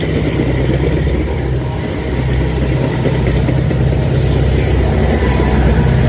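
Diesel passenger locomotive running close by: a steady, loud, low engine drone.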